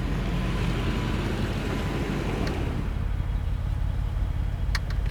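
Steady low rumble of roadside vehicle noise with wind buffeting the microphone. A wash of higher noise fades about three seconds in, and a few sharp clicks come near the end.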